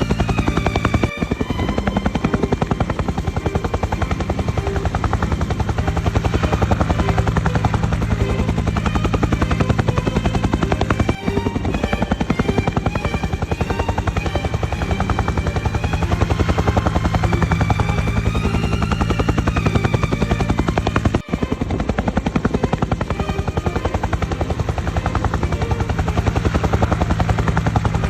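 Helicopter rotor running steadily with a fast, even blade chop, under background music. The sound drops out for a split second three times, about ten seconds apart.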